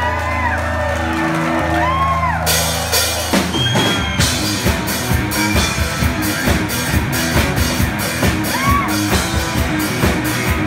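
Live garage blues-rock duo: an electric guitar holds a sustained, distorted chord while the crowd whoops, then the drum kit crashes in about three seconds in and the two play on at a fast, driving beat.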